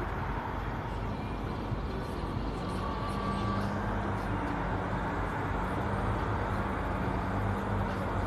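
A vehicle engine running steadily, a low hum over an even rushing noise.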